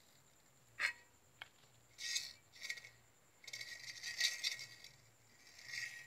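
Light metal-on-metal clinks and scraping as a ceiling fan's stator assembly and shaft are handled: two short clicks, then three spells of scraping.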